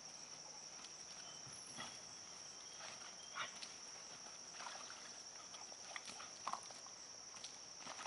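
Faint sounds of a Doberman tugging on a leash tug, with a few brief dog noises over a steady high-pitched drone.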